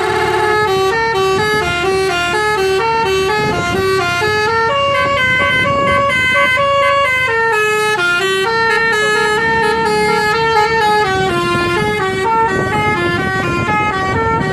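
Bus 'telolet' multi-tone horn of the Basuri type playing a melody of stepped notes, each held about a quarter to half a second, rising and falling like a tune. A low steady rumble runs underneath.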